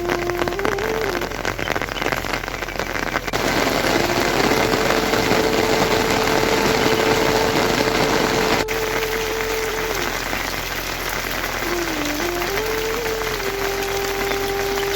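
Heavy rain pouring steadily, with a soft melody line of long held notes over it.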